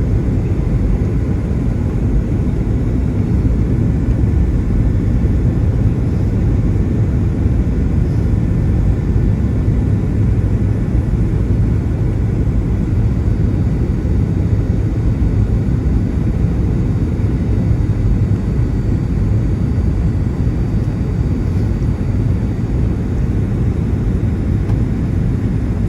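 Steady low roar of a Boeing 757-200's engines and airflow heard inside the passenger cabin during the final approach to landing.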